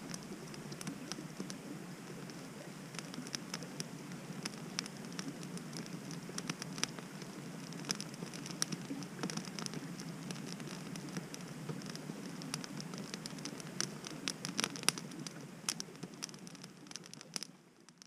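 Campfire of small sticks and branches crackling, with many irregular sharp pops over a steady low hiss. It fades out near the end.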